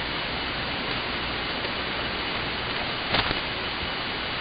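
Steady hiss of shortwave band noise heard through an AM receiver tuned to the 40-meter band, with one short louder crackle about three seconds in.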